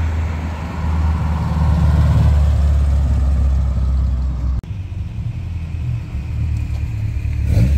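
1977 Toyota Corolla with a built 2.0 L Toyota 3T-C four-cylinder driving past, its engine and exhaust running with a steady low-pitched drone. The sound breaks off abruptly a little past halfway and resumes at a slightly lower level.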